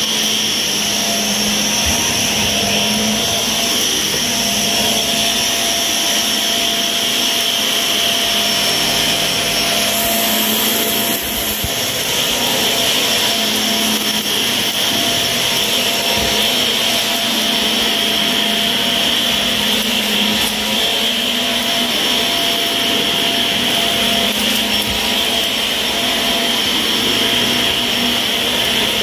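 Shark vacuum cleaner running steadily on carpet, its motor giving a constant high whine over a lower hum.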